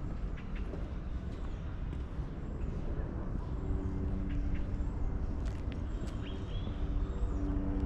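Outdoor ambience on a walk through a city park: a constant low rumble of distant traffic, with a steady hum that sets in about halfway through and a few short bird chirps.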